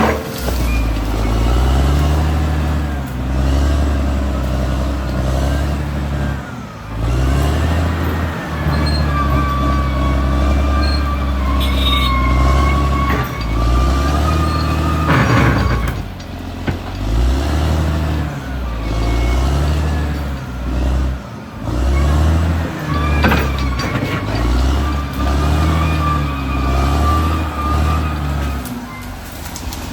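Caterpillar D6R XL bulldozer's diesel engine working under varying load, its note rising and falling every few seconds as it pushes soil. A few sharp metallic clanks are heard over the engine.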